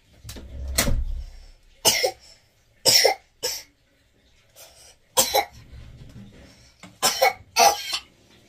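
A young child coughing in short, sudden bursts, several times, some in quick pairs, after a low rumble about a second in.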